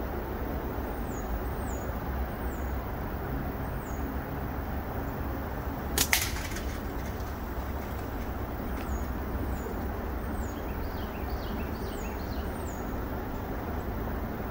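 A slingshot with flat latex bands is shot once: a single sharp snap about six seconds in. A small bird repeats short, high, falling whistles many times over a steady low background rumble.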